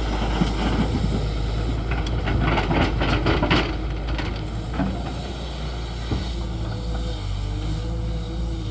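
Tata Hitachi excavator's diesel engine running steadily, with a run of knocks and rattles in the first few seconds as it works.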